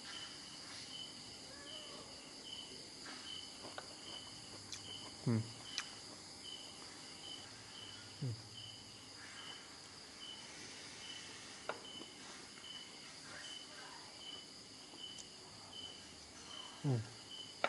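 Crickets and other insects: a high chirp pulsing about two or three times a second over a steady high insect drone. A few short sounds sliding down in pitch break in now and then.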